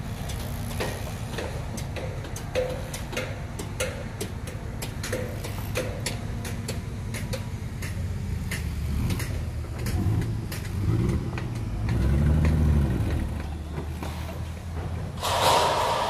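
Scania tipper truck's diesel engine running, then revving under load as the truck pulls through soft soil, its pitch rising and falling several times in the second half. A sharp burst of air hiss comes near the end.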